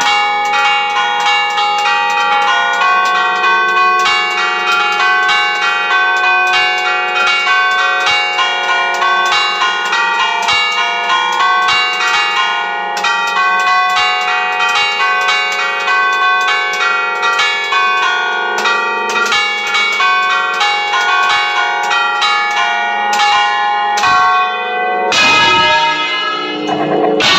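Several large church bells ringing together close up in the belfry, a fast, continuous peal of overlapping strokes.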